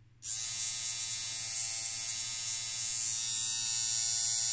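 Opened Mallory 1701 mechanical vibrator (DC-DC switching vibrator) powered on about a quarter second in, its reed oscillating and its contacts buzzing steadily on only 5 volts.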